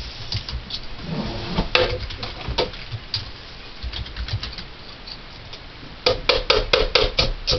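Hammer tapping a nail into a metal bottle cap to punch a hole: scattered light taps, then about six second in a quick run of about six harder, ringing strikes.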